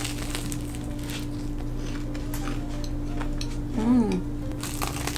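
Bite into and chewing of a flaky puff-pastry apple turnover, light crackles of the crust, over a steady low hum. About four seconds in, a short hummed 'mmm' from the eater is the loudest sound.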